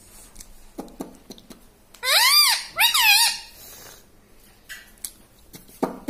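Rose-ringed parakeet giving two loud, shrill squawks, each rising and falling in pitch, about two and three seconds in. Faint clicks and rustles are heard around them.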